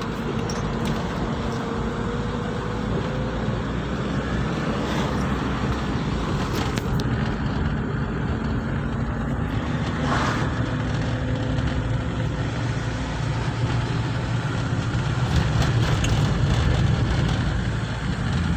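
A car running along a road: steady engine hum and tyre noise, growing a little louder near the end.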